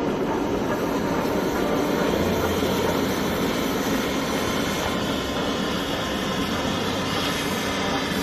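Train running: a steady, unbroken rumble.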